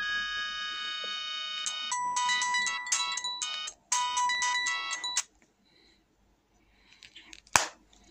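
Samsung SGH-X160 flip phone's alarm playing its ringtone melody, a run of clear electronic notes, with a brief break before it stops about five seconds in. A single sharp click near the end.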